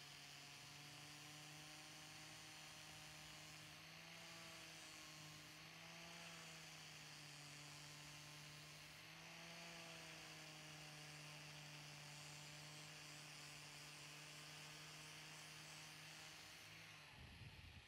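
Faint, steady hum of an angle grinder with a sanding disc running against a wooden knife handle, its pitch wavering briefly a few times.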